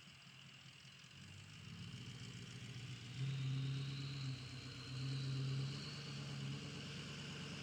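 A vehicle engine running with a low, steady hum. It grows louder about a second in and swells twice in the middle.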